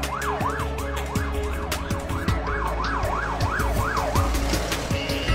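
Ambulance siren on fast yelp, sweeping rapidly up and down about two and a half times a second as the ambulance arrives, over the low rumble of vehicle engines; the siren cuts off a little after four seconds in.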